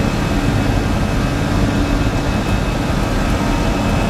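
Steady flight-deck noise of an Airbus A320-214 in flight: an even rush with a faint steady high whine and a low hum beneath it.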